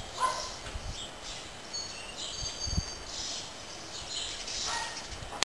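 Outdoor ambience: a steady hiss with a few short, high-pitched bird chirps about two seconds in.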